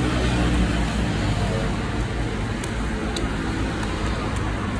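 Street traffic noise: a steady, even rumble of passing road traffic.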